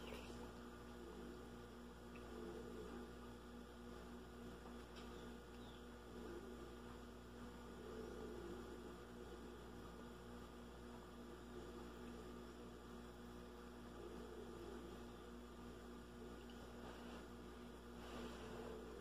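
Faint, steady electrical hum, with quiet sounds of noodle soup being eaten from a spoon, including slurping right at the start and again near the end.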